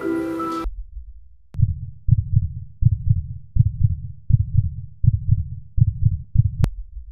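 Heartbeat: low double thumps, about four beats every three seconds. They start about a second and a half in and cut off abruptly near the end.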